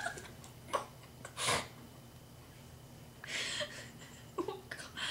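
Stifled laughter: a few soft breathy puffs and snorts through a hand over the mouth, with a brief giggle about four and a half seconds in.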